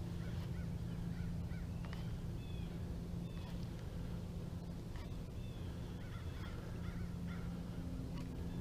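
Birds chirping and calling in short, scattered notes over a steady low hum.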